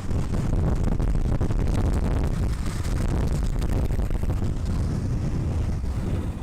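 Steady wind buffeting the microphone over a low, continuous rumble, like that of something moving fast outdoors.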